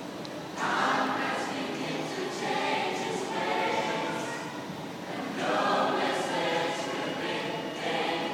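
Mixed choir singing unaccompanied in a hard-walled metro station. The voices swell up about half a second in and again about five and a half seconds in.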